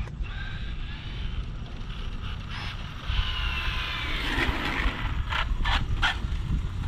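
Arrma Limitless 8S RC car's brushless motor and gears whining at speed. The high whine falls in pitch about three seconds in, followed by a few short sharp bursts near the end as the car runs past.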